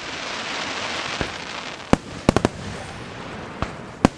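Aerial firework shells bursting at a fireworks display: a dense crackling hiss for the first second and a half, then about seven sharp bangs, three of them in quick succession midway.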